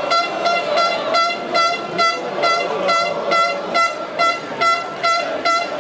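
A horn sounding short, identical toots in a fast, even rhythm, about two and a half a second, over the murmur of a football crowd in the stands.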